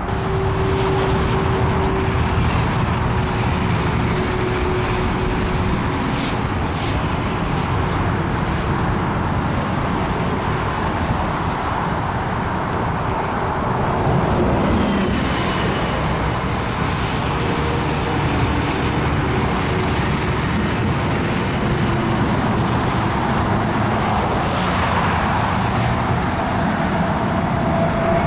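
Steady engine and traffic noise, an even rumble with a faint steady whine, swelling slightly twice.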